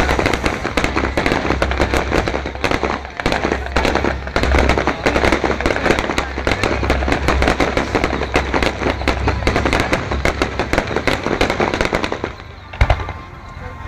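Fireworks going off in a dense, rapid barrage of crackling pops and bangs that eases off about twelve seconds in, followed by one sharp bang near the end.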